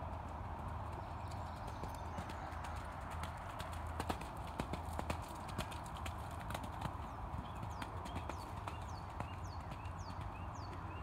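Pony's hooves beating on the sand arena footing at a canter, loudest about four to six seconds in as it passes close, then fading as it moves away.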